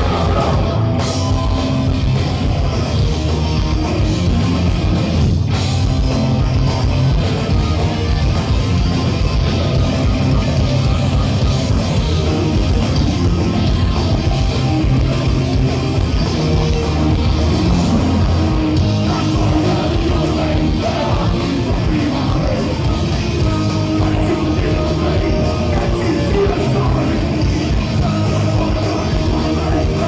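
Oi! punk band playing live through a PA: distorted electric guitars, bass and drums at full volume, with shouted vocals.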